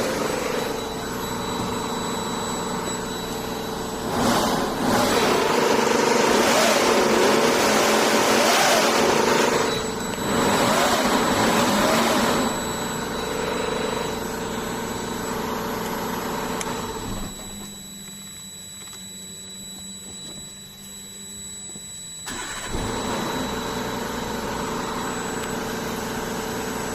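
Cummins ISX15 inline-six diesel engine running, its loudness rising for several seconds early on and dropping for a few seconds past the middle before coming back up. The uploader puts the strange noise from its timing gear train down to badly adjusted camshaft gears.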